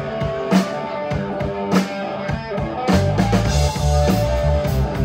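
Live rock band: an electric guitar riff with drums and cymbal hits, joined about three seconds in by a heavy bass guitar line as the full band kicks in.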